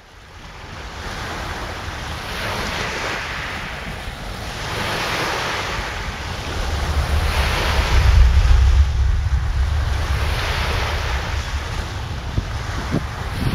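Lake Michigan waves breaking on the shore, a hiss that swells and fades about every two and a half seconds. Strong wind buffets the microphone underneath as a low rumble, loudest around the middle.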